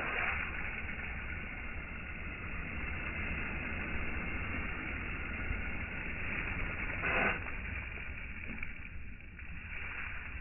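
Water spraying from a garden hose, a steady rushing hiss that starts suddenly, played back slowed down in slow motion so it sounds deep and dull. A brief louder swish comes about seven seconds in.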